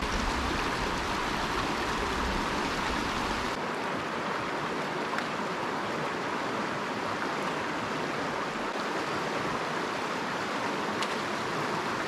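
Shallow mountain river running over rocks: a steady rush of flowing water. A low rumble under it for the first few seconds drops out suddenly about three and a half seconds in.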